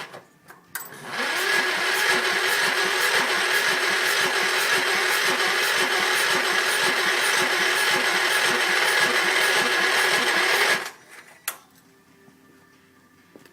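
Electric starter cranking the Gravely 5865's Kohler K341 single-cylinder engine steadily for about ten seconds without it catching, on a first start attempt after the carb was cleaned and a new plug fitted. The cranking cuts off abruptly, followed by a single click.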